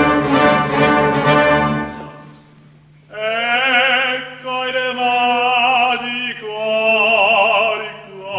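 Operatic music: the orchestra plays over a held low note, dips into a brief lull about two seconds in, then a male voice sings sustained notes with wide vibrato over the orchestra from about three seconds in.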